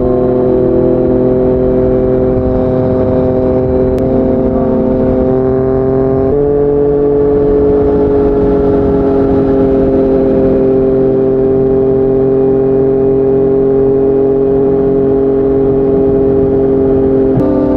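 Yamaha MT-09's three-cylinder engine running through a Yoshimura R55 slip-on exhaust while riding at highway speed. The engine note holds steady, changing pitch abruptly about six seconds in and again near the end.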